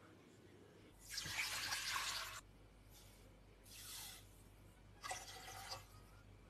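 Brine ingredients poured into a stainless steel pot in three separate pours with splashing. The first and loudest comes about a second in, a shorter one comes near the middle, and another comes about five seconds in.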